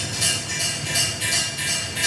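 A steady rhythmic rattling, a hissy, jingly noise coming in pulses about twice a second over a low rumble: the repeated noise that follows loud banging.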